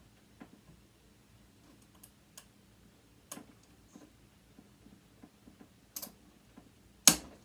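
Small metal clicks and taps from an Allen wrench working a tight hex screw in a sewing machine motor. Near the end comes one much louder sharp click as the screw breaks loose.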